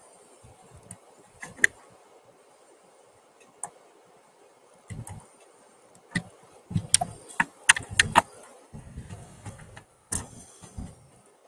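Irregular sharp clicks and knocks, some with a dull thud beneath them, bunched most closely from about five to eight seconds in.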